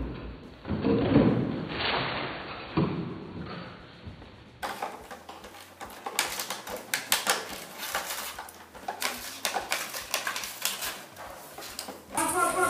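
Bernese mountain dog puppies moving about on a tiled floor: many quick, irregular clicks and taps of claws and paws on the tiles, with rustling of towels and newspaper.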